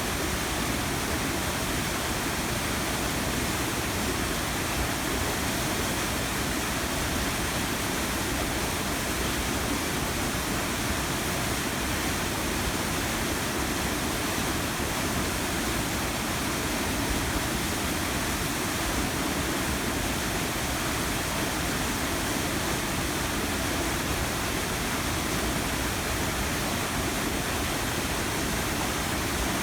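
Waterfall on a river pouring steadily, a constant rushing of falling water.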